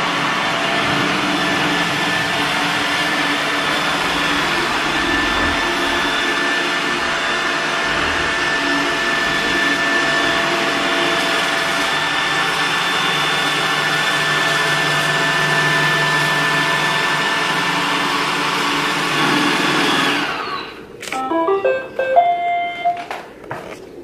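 iRobot Roomba 960 robot vacuum running steadily while it drives back to its charging base. About twenty seconds in the motors shut off as it docks, followed by a short series of electronic beep tones.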